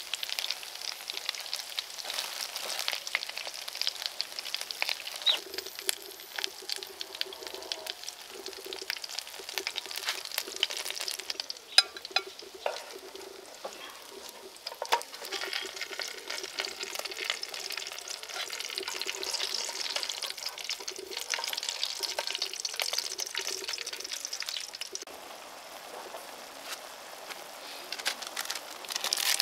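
Rat meat frying in oil in a nonstick frying pan: a steady sizzle with crackles and a few sharp clicks. About twenty-five seconds in, the sizzle gives way to a quieter sound of instant noodles cooking in water in the pan.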